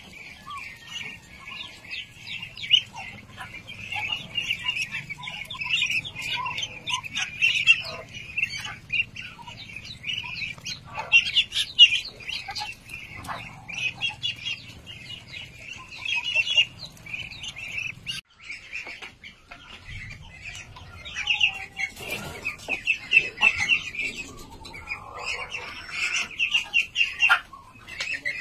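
A flock of young white Muscovy ducklings peeping without pause, many quick high-pitched peeps overlapping. A faint low hum underneath stops about two-thirds of the way through.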